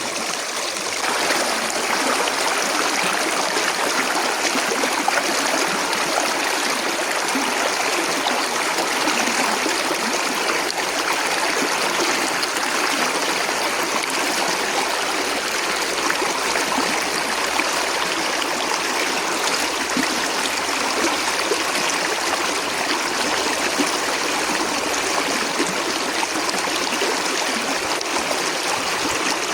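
Steady rushing of flowing stream water, a little louder from about a second in.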